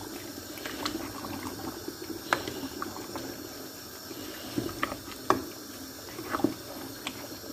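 Tomato stew simmering in a steel pot: a steady bubbling hiss broken by a few sharp pops and clicks.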